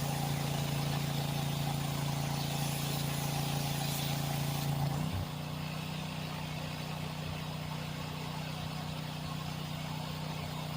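A small engine running steadily. About halfway through the sound changes abruptly: the upper tones drop out and it carries on lower and quieter.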